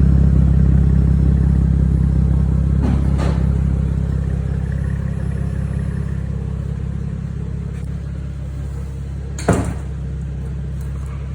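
2002 Nissan Maxima's 3.5-litre V6 idling steadily under the car, its exhaust leaking from the resonator back. The sound eases somewhat after about four seconds, and a single sharp knock comes near the end.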